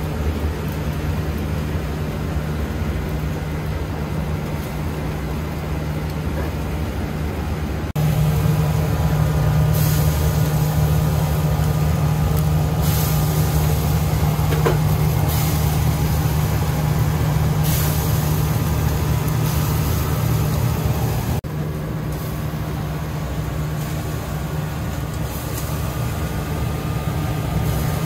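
Steady, loud drone of the ventilation fan over a charcoal eel grill, with a low hum. Brief hisses come now and then from the grill. The level steps up about 8 seconds in and drops back about 21 seconds in.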